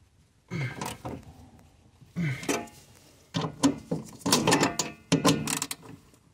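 A hand wrench works a nut on a Suzuki Samurai's throttle pedal bracket, giving short runs of metallic clicks and scrapes. They grow busier over the last three seconds.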